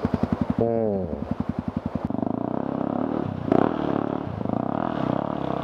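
Single-cylinder trail motorcycle engine chugging at low revs with evenly spaced firing pulses, then revving up and pulling harder about two seconds in. A short falling tone sounds under a second in.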